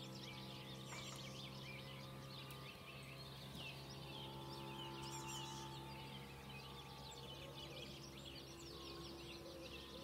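Faint chorus of many small songbirds chirping and singing at once, over a steady low hum.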